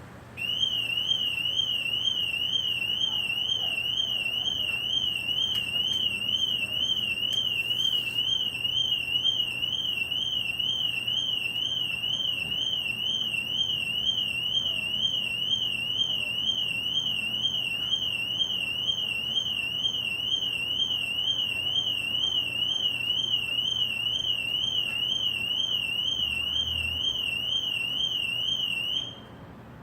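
Car alarm siren sounding one continuous high-pitched warble that rapidly rises and falls in pitch. It starts about half a second in and cuts off suddenly shortly before the end.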